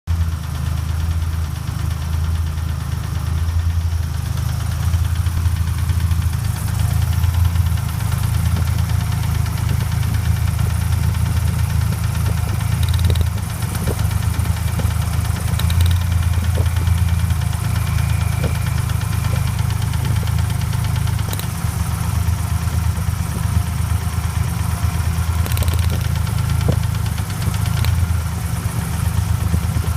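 Ford Ranger's 4.0-litre OHV V6 idling steadily with a rhythmic rod knock, the sign of a connecting rod damaged when the engine was hydrolocked.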